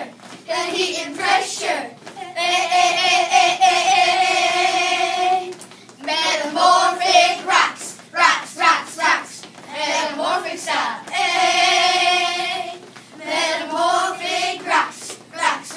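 Children singing together, with two long held notes, one about two seconds in and one near the end.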